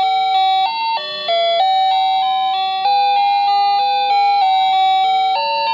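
Wireless doorbell's chime receiver playing the ninth of its built-in electronic melodies: a tune of held notes over a quick-stepping accompaniment that changes note several times a second.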